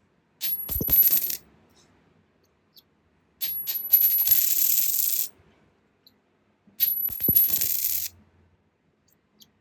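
A coin dropped onto a hard surface, three times over. Each fall opens with a few quick clinks, then the coin rattles and spins down with a high ring for one to two seconds before it settles.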